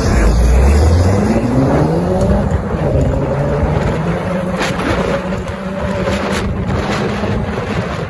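A vehicle engine runs under way. Its pitch drops about a second in, climbs as it accelerates, then holds steady.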